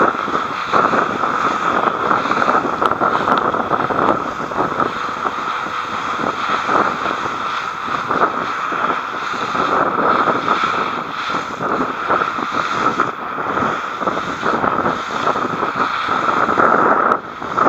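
Boat running at speed over open sea: a steady rush of wind buffeting the camera microphone, mixed with bow spray and the hull through the water. It cuts off suddenly near the end.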